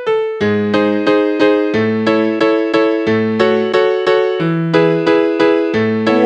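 Electric piano music: chords struck in a steady pulse of about three a second over a bass line that changes every second or so.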